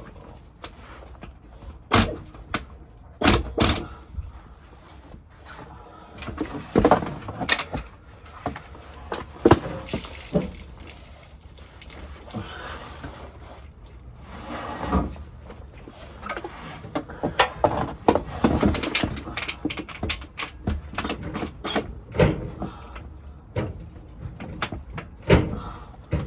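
Hand tools clanking and knocking on metal while a GM 4L60E transmission is being unbolted from a junkyard car: irregular sharp knocks every few seconds, with quieter handling noises between.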